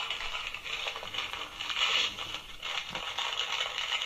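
Recorded sound of wrapping paper being torn and rustled, played as a present-unwrapping effect through a small toy sound-button speaker. It is a steady crackling rustle.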